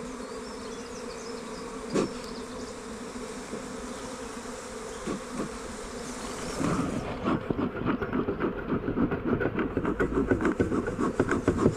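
Swarm of honey bees buzzing in a steady hum. About seven seconds in, a louder, rough, rumbling noise comes in over the buzzing.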